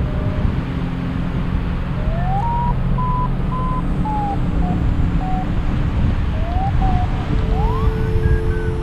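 Paragliding variometer beeping in short tones that step and glide up and down in pitch with the climb rate, rising to its highest tones near the end as lift strengthens. Heavy wind rushes on the microphone underneath.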